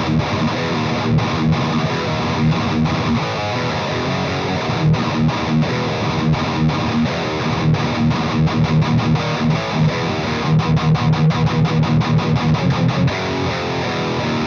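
Heavily distorted electric guitar riff with rapid palm-muted chugs, played through a Splawn Quickrod 100 amp, a modded-Marshall-style head, on its high-gain overdrive channel into a 1x12 cabinet with Celestion Greenback speakers. The guitar is tuned down to E flat. The chugs come fastest from about ten to thirteen seconds in.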